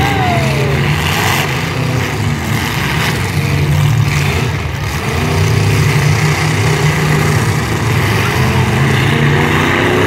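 Demolition derby cars' engines running and revving loudly, rising and easing in waves.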